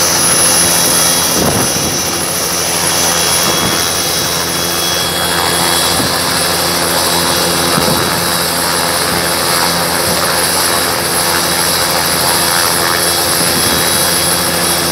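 Bell 206 JetRanger helicopter running: a steady high turbine whine over an even low rotor sound. One of the whine tones drops slightly about five seconds in.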